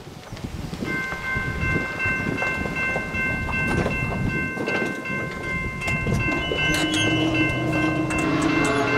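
A railroad grade-crossing warning bell starts ringing about a second in, a steady clang of several high bell tones, as a train approaches. About seven seconds in, a low steam locomotive whistle sounds in the distance over a growing rumble of the oncoming train.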